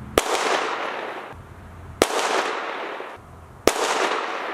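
Three handgun shots, spaced a little under two seconds apart, each followed by a long echo that fades away.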